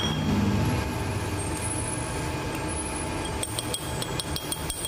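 Steady low background rumble. From about three and a half seconds in, a quick run of light metallic clinks with a bright ring, about five a second, as a steel rod taps against the meat grinder's steel ring collar.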